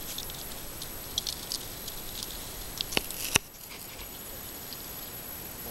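Grass and reed stems rustling with scattered small clicks as a hooked traíra is held and worked free with pliers at the water's edge. There are two sharper clicks a little past three seconds in.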